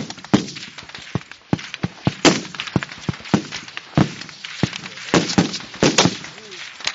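Rifle shots along a firing line: many rifles going off at irregular times, about three a second. Some shots are loud and sharp with a short echo, others fainter and farther off.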